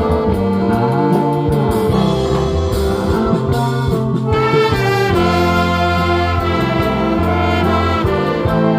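Live band music without singing: a horn lead plays sustained melody notes over bass and drums, with the chord changing about five seconds in.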